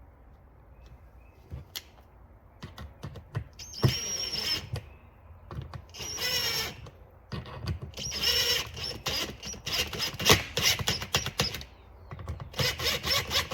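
Tool work on the screws of a Stihl 023 chainsaw's handle: several short bursts of mechanical whirring with a high whine and clicks, each under a second long, starting about 4 seconds in.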